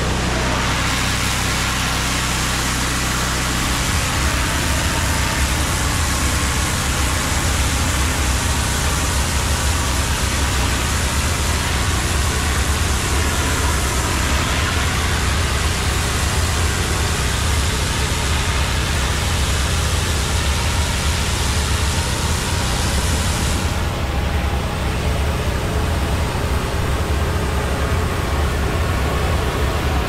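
Engine-driven steam cleaner running: a steady low engine hum under the hiss of a superheated-water jet on brickwork, stripping off ivy tendrils. The low hum grows louder about four seconds in, and the highest part of the hiss drops away about three-quarters of the way through.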